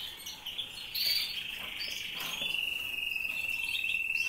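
Domestic canary singing one long, high trill that settles into a steady pitch about halfway through, with other canaries chirping around it.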